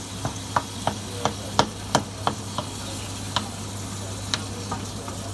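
Chicken pieces frying in a pan with a steady sizzle, while a cooking utensil stirs them and knocks against the pan. The knocks come about three a second at first, then a few scattered ones.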